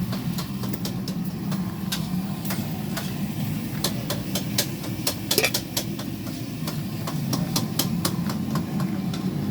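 A steady low engine-like hum with frequent sharp clicks and knocks throughout.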